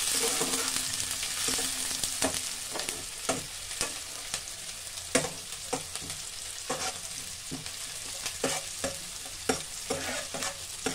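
Chopped onion and garlic sizzling in hot oil in a non-stick kadhai. A steel spatula scrapes and taps against the pan as it stirs. The sizzle is loudest at first and slowly eases off.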